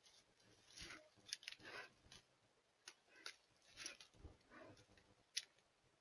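Faint, irregular rustling and crunching of dry brush and twigs as an American black bear walks and noses through the undergrowth, with a few sharp twig snaps, the loudest near the end.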